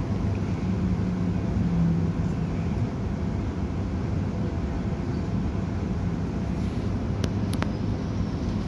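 Steady low rumble inside the passenger car of a Z 50000 (Francilien) electric multiple unit, with a faint hum early on and two short clicks near the end.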